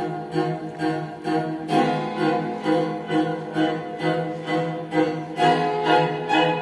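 Recorded string music with a pulsing beat about twice a second over a steady low note, played back through hi-fi loudspeakers in a small room for a sound test.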